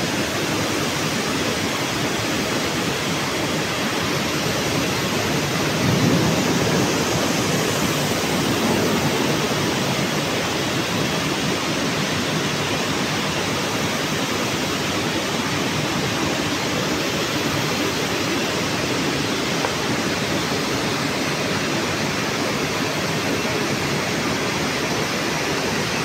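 Steady, even rushing noise of an industrial hall, with no clear pitch; it swells slightly about six seconds in, then settles back.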